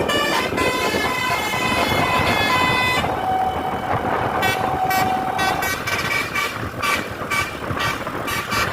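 Bus telolet horn, a multi-tone musical air horn, playing a stepping melody for about three seconds, then holding one lower note for about two and a half seconds. After that comes a run of short, sharp knocks.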